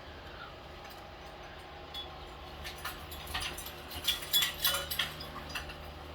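Scattered light clinks and taps of small hard objects, clustered between about two and five and a half seconds in, over a steady low room hum.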